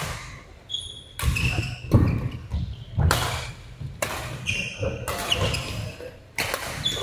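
Badminton rally: rackets striking the shuttlecock several times, with short high sneaker squeaks on the court mat and footfall thuds between the hits, echoing in a large hall.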